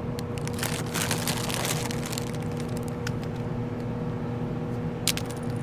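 A steady low mechanical hum, likely from a motor, with scattered clicks and rustles, the thickest of them in the first couple of seconds and a few more later.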